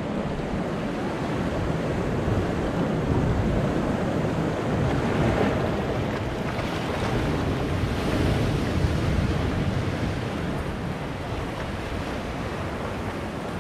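Sea surf breaking and washing in among rounded shoreline boulders: a continuous rushing wash that swells louder a few times as waves come in and eases between them.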